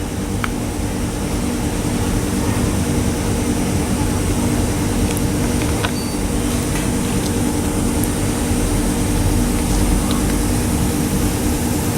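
Electric fan running: a steady hum with air noise, and a few faint clicks scattered through it.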